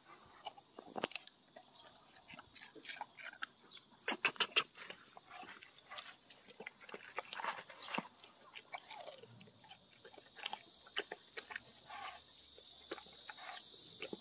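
Dog eating watermelon, biting and chewing the juicy flesh and rind with irregular wet crunches. A quick run of loud bites about four seconds in.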